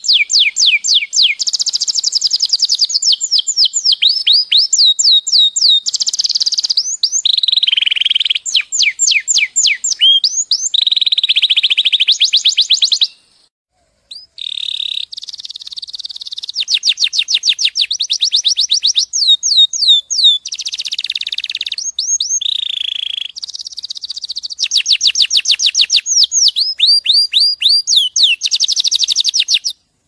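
Domestic canary singing: long fast trills of rapidly repeated sweeping notes, one phrase running into the next, with a brief pause about halfway through.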